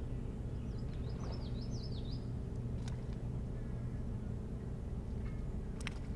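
A songbird sings one short, rapid phrase of high up-and-down chirps about a second in, over a steady low hum, with two faint ticks later on.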